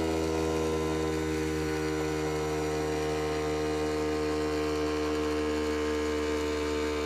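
The built-in electric air compressor of a Grammer MSG75 air suspension seat running with a steady, even hum while the height lever is held up, pumping up the seat's air spring to raise the seat.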